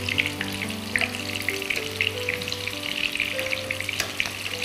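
Breaded chicken fingers deep-frying in hot vegetable oil in a pan, a continuous crackling sizzle with occasional sharper pops. Soft background music plays underneath.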